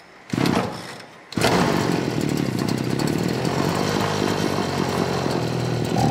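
Pimar brushcutter's small two-stroke engine starting: a brief burst of firing under a second in, then it catches at about a second and a half and runs steadily before stopping abruptly.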